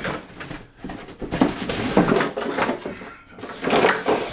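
Cardboard packaging and plastic vacuum-cleaner parts being handled and pulled out of a box: irregular rustling with a few knocks and clacks.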